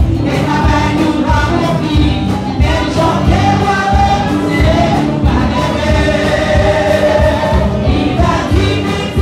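Gospel worship song sung by a choir of voices through microphones and a PA system, with musical backing, continuing without a break.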